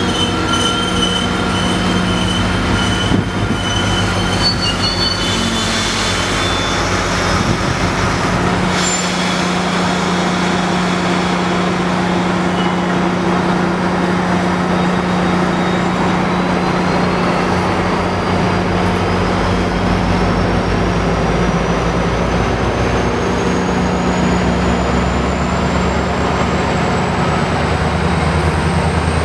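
MARC commuter train of bilevel coaches rolling past on the tracks: a steady loud low drone with continuous wheel-on-rail noise. A thin whine rises slowly in pitch through the second half.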